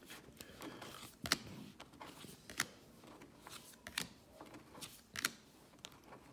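Baseball trading cards being flipped through by hand: four sharp card snaps, about one every second and a half, with faint rustling of card stock between them.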